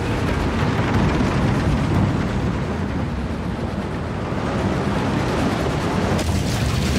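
Steady, loud rumble and rattle of a mine cart running along rails, a sound effect from a motion-ride film's soundtrack.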